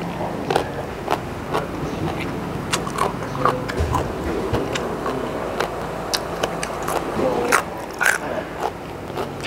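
A person chewing crunchy raw vegetables, a raw Thai round eggplant among them, close to a clip-on microphone: irregular crisp crunches and mouth clicks, one or two a second.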